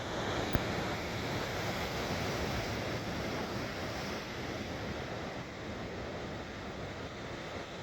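Rough, storm-driven sea surging and breaking in a steady wash of surf, with wind buffeting the microphone. A single brief click about half a second in.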